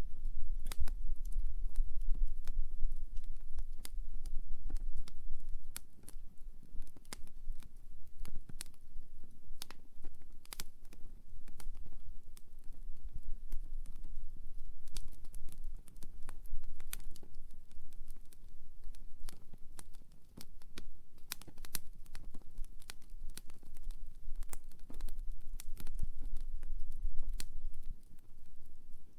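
Wood campfire crackling, with many irregular sharp pops and snaps over a low rumble.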